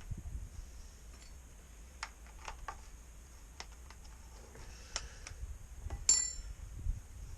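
Scattered light clicks and knocks of a small Stihl chainsaw being handled and inspected, with one sharp metallic clink about six seconds in that rings briefly.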